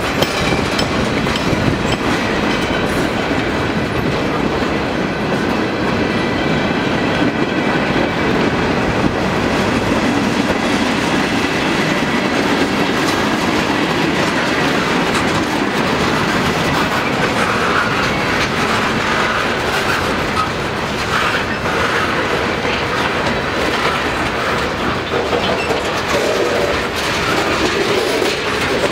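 Freight cars of a long manifest train rolling past: a steady rumble and clickety-clack of steel wheels over the rail joints.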